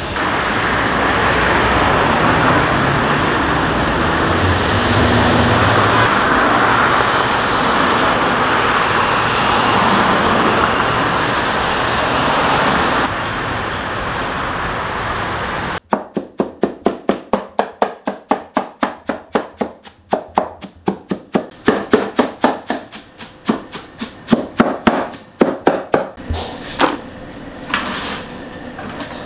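Loud steady music-like wash of sound, then, a little past halfway, a knife chopping fast on a cutting board, about four strokes a second, turning uneven near the end: onion being chopped for manti filling.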